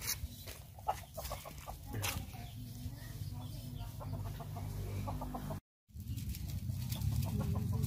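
Chickens clucking in short, scattered calls, with a few light clicks and a steady low hum underneath. The sound drops out completely for a moment about six seconds in.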